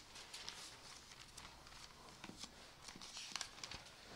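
Near silence: room tone with a few faint soft clicks and rustles.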